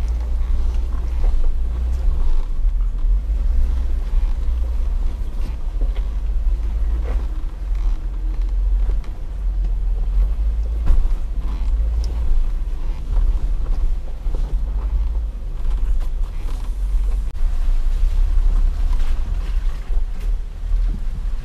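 Low, steady rumble of an off-road 4x4 crawling slowly over a wet rocky trail, with scattered creaks and knocks through it.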